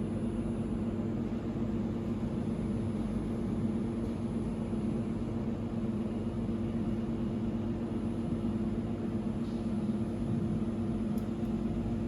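Automatic laser welding machine running: a steady machine hum, with a few faint clicks near the end.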